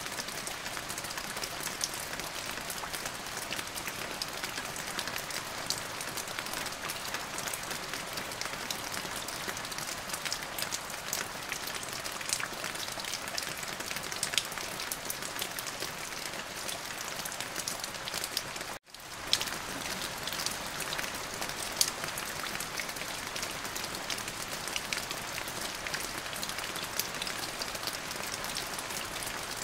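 Steady rain falling, an even hiss dotted with the ticks of individual drops. The sound cuts out completely for a split second about two-thirds of the way through, then resumes.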